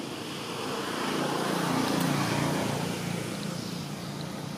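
A motor vehicle's engine passing by, growing louder to a peak about two seconds in and then fading away.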